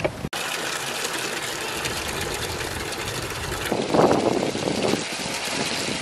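Water running from an outdoor tap into a plastic bucket, a steady rushing hiss that turns louder and fuller about two-thirds of the way in.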